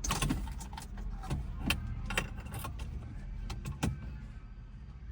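Plastic clicks, knocks and rattles of wiring-harness connectors being handled and unplugged from the back of a car stereo head unit, over a steady low hum.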